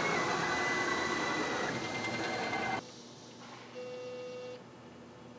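Onefinity hobby CNC router cutting walnut: the Makita router motor running with the whine of the stepper motors driving the gantry, stopping abruptly about three seconds in. After that only a faint brief hum.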